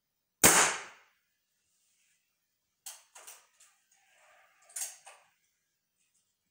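Chinese bullpup pellet carbine firing a single shot, a sharp crack about half a second in that dies away within half a second. A couple of seconds later comes a quieter run of mechanical clicks and clacks from handling the gun.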